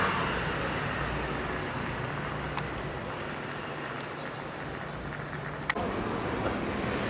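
Steady city street ambience of road traffic, with a faint low hum. A sharp click comes about three-quarters of the way through, after which the background noise changes.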